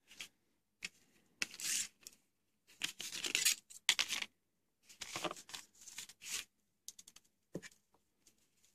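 Hands handling and working flexible LED strips: several short bursts of scraping, crinkling noise, then a few light clicks near the end.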